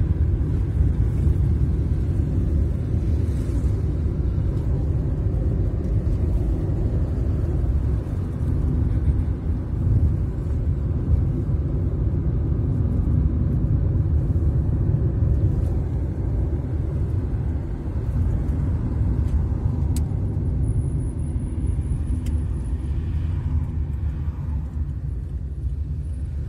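Steady low rumble of a moving car heard from inside: engine and tyre road noise, with no break.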